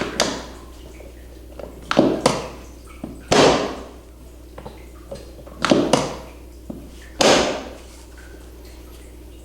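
A series of about seven sharp, sudden sounds of a manual therapy manipulation, with joint cracks announced as a noise the patient will hear, each trailing off briefly. They come in pairs and singles, a second or two apart.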